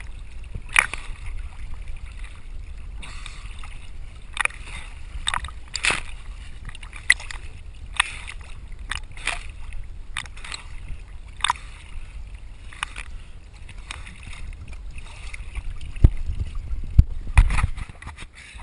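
Water splashing and lapping against a small fishing boat in short irregular splashes, over a steady low wind rumble on the microphone, with a few heavy knocks against the boat near the end.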